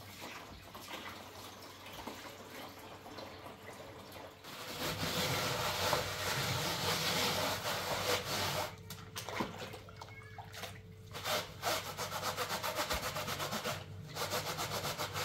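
Sponge scrubbing a plastic bowl in a basin of soapy water, with water sloshing; the rubbing grows louder about a third of the way in, and near the end it falls into quick back-and-forth strokes of about four a second.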